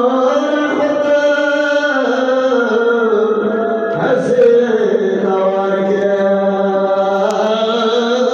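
A voice chanting a Pashto noha, a Shia mourning lament, in long held notes that slide slowly up and down in pitch.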